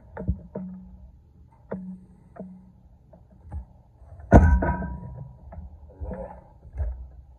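Arm-wrestling wrist training handle worked on a pulley cable, making irregular knocks and clunks as it is pulled and let back. About four seconds in comes one much louder clank that rings briefly.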